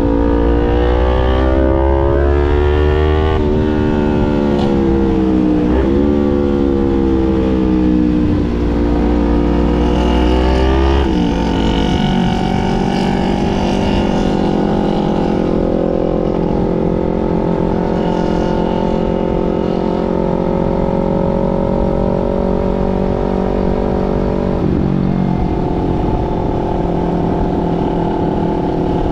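Motorcycle engine accelerating through the gears, its pitch climbing and dropping back about four times as it shifts up, then holding a steady pitch while cruising.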